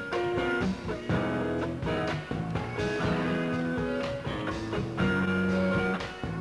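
Funk band playing live: guitar over drums and bass, with held chords and a steady beat.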